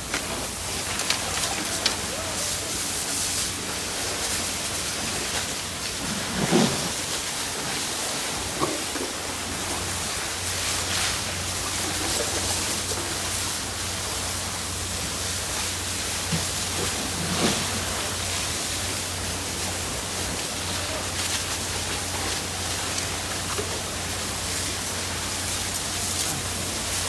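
Steady hiss of water spraying from a fire hose onto burning rubbish, over a low steady hum. A few short knocks and faint voices come through the spray.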